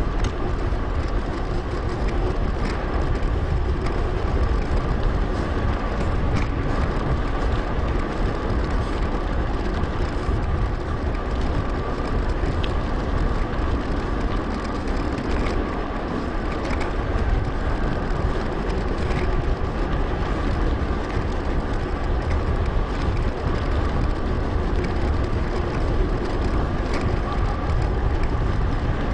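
Wind buffeting an action camera's microphone while riding a mountain bike, with steady tyre and drivetrain rumble, a faint steady whine and scattered small ticks.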